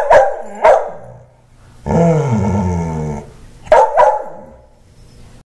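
Wheaten terrier barking angrily: three sharp barks, then one long call that falls slightly in pitch and lasts over a second, then two more sharp barks. It is an angry protest at having been given a haircut.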